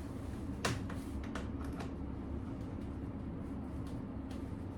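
Clicks and light knocks of a baby stroller's front wheel assembly being handled at its release button: one sharp click about half a second in, then a few lighter clicks, then only a low steady background hum.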